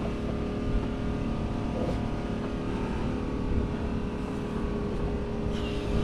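An engine running steadily, a constant drone with a steady hum and no change in speed.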